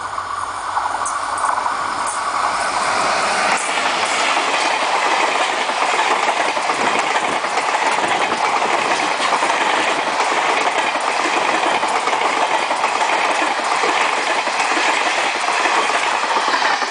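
Diesel-hauled express passenger train passing close by. The sound builds over the first few seconds as the train arrives, then the coaches rush past with a steady, loud rush of wheel-on-rail noise.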